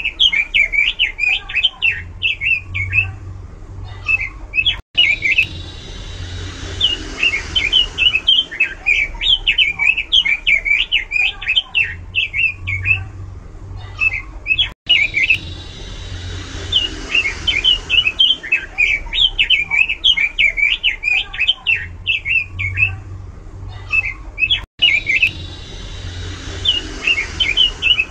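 Pekin robin (red-billed leiothrix) singing loudly: fast, varied warbling phrases of rapid chirps with short pauses between them. The recording repeats about every ten seconds and cuts out for an instant at each repeat.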